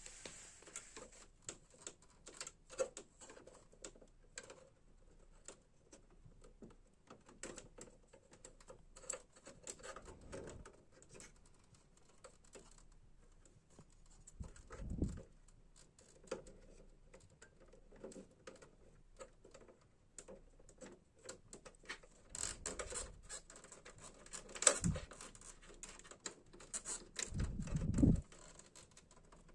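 Irregular small clicks and taps of hands handling plastic printer parts, with a few heavier knocks about halfway through and near the end.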